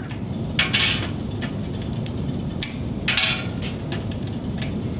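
MPO fibre-optic connectors being handled and pushed into the adapters on a patch-panel blade: several sharp plastic clicks, spaced irregularly, with two short rustles of cable and connector bodies, one about half a second in and one about three seconds in.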